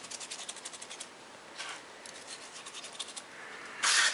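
Dry plov spice mix being rubbed between gloved fingers and sprinkled into the multicooker bowl: faint scratchy rubbing, densest in the first second, with a short louder hiss just before the end.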